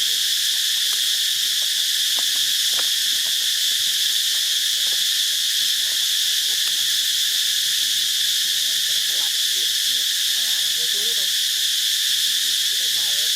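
Steady, unbroken high-pitched insect chorus that holds one even level throughout.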